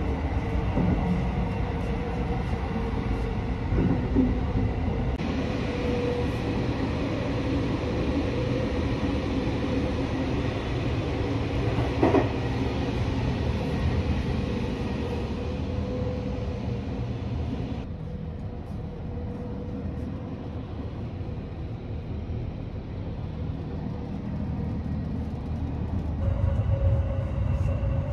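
Sunrise Seto sleeper train running, heard from inside the carriage: a steady rumble of wheels on rail with a faint steady hum. A single sharp click about twelve seconds in, and the rumble grows louder near the end.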